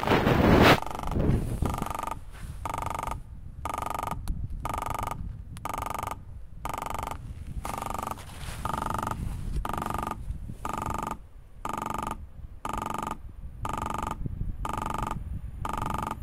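Level crossing warning signal ringing in short even pulses, about two a second, sounding while the crossing is closed for an approaching train. A brief loud rush of noise near the start.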